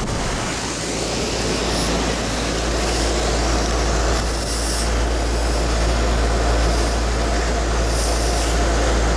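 Lennox central air conditioner condensing unit running close up: a steady, loud rush from the condenser fan over a constant low hum from the compressor.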